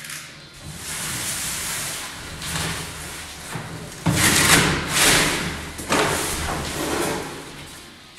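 Packaging being pulled and scraped off a large side-by-side refrigerator during unpacking: rough rustling and scraping in uneven bursts, loudest in the middle few seconds.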